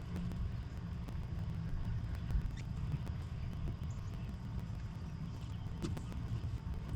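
Wind buffeting the microphone in strong gusty wind, a steady low rumble, with a couple of faint short high squeaks.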